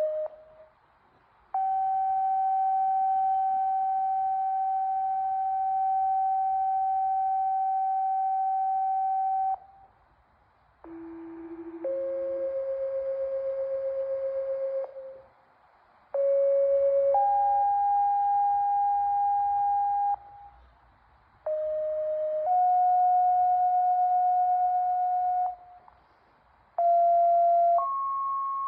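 Fire/EMS dispatch paging tones sent out over the radio: one steady tone held about eight seconds, then a run of two-tone sequential pages. In each page a short tone of about a second steps straight into a longer tone of about three seconds at a different pitch, with brief gaps between pages. Each tone pair is the code that sets off one station's pagers, sent here as a test.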